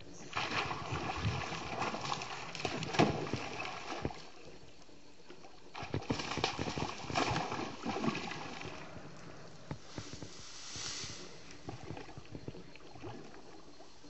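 Hooked brown trout splashing and thrashing at the river's surface while it fights the line, in two spells of splashing with a quieter stretch between.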